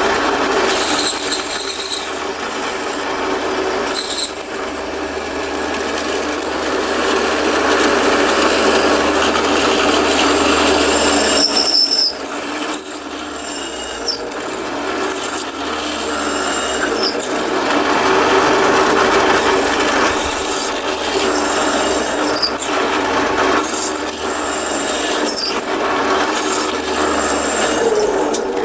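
Belt-driven drill press running at a spindle speed too fast for aluminum, its bit cutting through an aluminum AR-15 lower receiver: a steady motor hum under the noise of the cutting. The sound dips briefly about twelve seconds in, then builds again.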